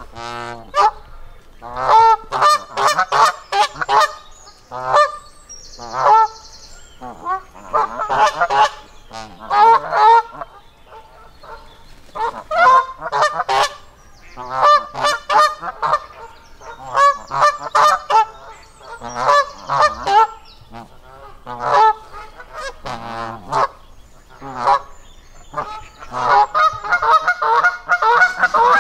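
Geese honking loudly and repeatedly in short runs of calls, one run every second or two, with the calls coming thicker and faster near the end.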